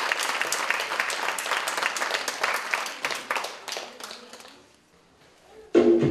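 Audience applause, a dense patter of many hands clapping that fades out about four seconds in. After a brief hush, music starts abruptly near the end.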